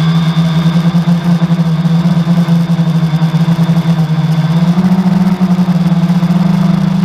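Quadcopter's four 1000 kV outrunner motors and 10x4.5 propellers humming steadily in flight, heard from the camera mounted on the drone; the pitch steps up slightly about two-thirds of the way in. The uploader says a bad motor bearing can be heard in this motor sound.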